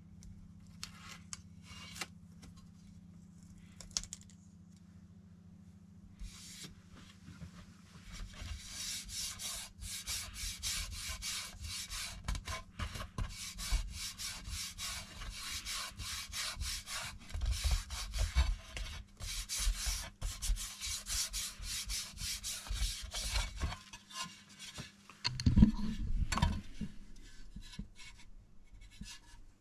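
A vinyl sticker being rubbed down by hand onto a motorcycle windshield: a few scattered clicks, then about fifteen seconds of quick, dense rubbing strokes. A louder bump near the end.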